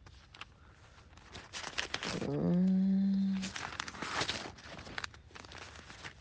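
Bible pages being leafed through: papery rustling with small clicks and crinkles. About two seconds in, a woman's voice gives a drawn-out 'mmm' that rises briefly, then holds level for about a second.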